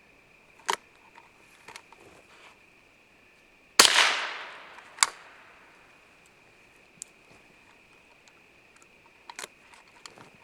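A single .22 LR gunshot, a sharp crack about four seconds in that rings out and fades over a second or two, followed about a second later by a shorter, sharper crack. Fainter clicks of handling come before and after.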